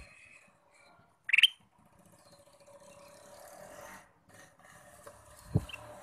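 Male ruby-throated bulbul (kutilang emas) giving one short, loud call about a second and a half in, over a faint steady background; a brief low thump near the end.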